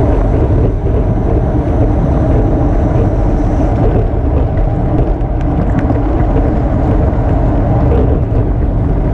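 Wind rushing over the microphone of a camera on a road bike at race speed, around 25 to 29 mph: a loud, steady, deep rushing. A few light clicks come in the second half.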